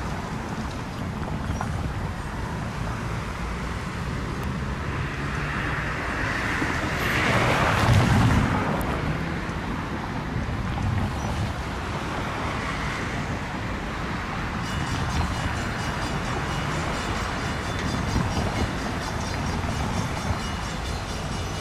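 Wind on the microphone over a low vehicle rumble, with one vehicle passing loudest about eight seconds in.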